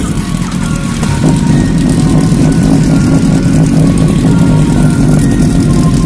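Several sport motorcycles idling together in a steady low engine rumble, which gets louder about a second in. Music plays over it.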